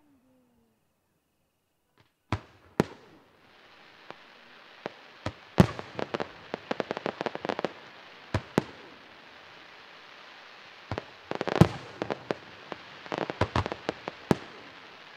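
Aerial fireworks shells bursting overhead after about two seconds of near silence: single sharp bangs, then rapid clusters of reports over a steady hiss.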